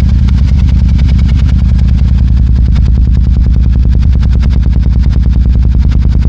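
Royal Enfield Super Meteor 650's parallel-twin engine idling through Rhino Racing aftermarket exhaust pipes with the dB killers removed, recorded at the pipe outlets. It runs with a steady, even pulsing deep burble.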